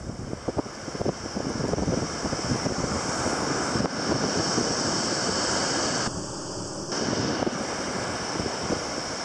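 Wind gusting on the microphone over a steady wash of surf on the shore.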